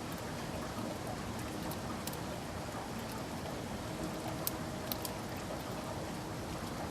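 Steady rainfall, with two sharper drop ticks about two-thirds of the way through.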